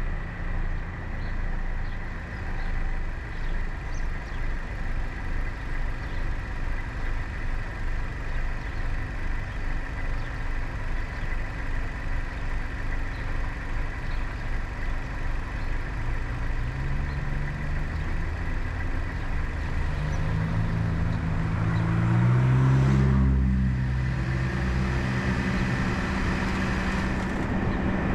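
Car engine idling at a stop, then rising in pitch and getting louder as the car pulls away and speeds up, loudest about two-thirds of the way through.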